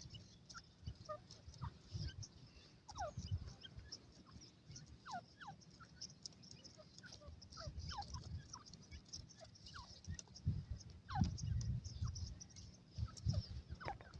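Short, faint, downward-gliding chirps from a francolin (teetar), scattered irregularly, with low thuds and rumbles underneath.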